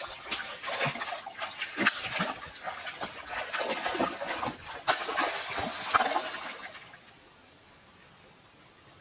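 Shallow stream water splashing as hands grab into it and bare feet wade through it, with repeated sharp slaps. The splashing stops about seven seconds in, leaving a faint bird chirp.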